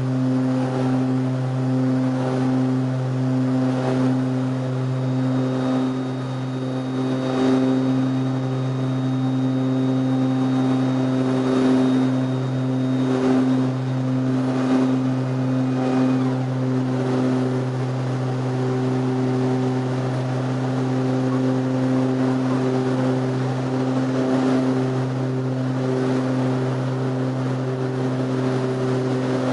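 Twin Garrett TPE331 turboprop engines and propellers of a CalFire S-2T air tanker, heard from inside the cockpit in flight: a loud, steady, deep drone held at one even pitch, swelling slightly now and then.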